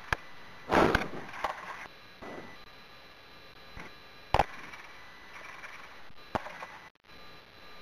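Scattered knocks and clicks in a flight simulator cockpit: a short noisy burst about a second in, then single sharp clicks near the middle and toward the end, over a faint steady electronic whine.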